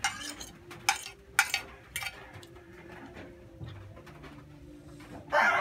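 Plates and a spoon clinking as a plate is set down and food is spooned from a bowl, with a few sharp clinks in the first two seconds and softer scraping after. Near the end a rooster starts crowing loudly.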